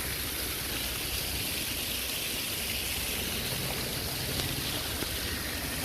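Narrow waterfall pouring into a stream, a steady, even sound of falling and running water.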